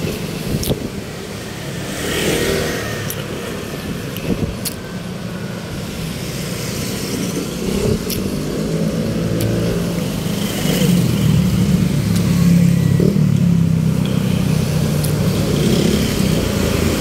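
Street traffic: motor vehicle engines running close by, louder from about ten seconds in as a vehicle draws near.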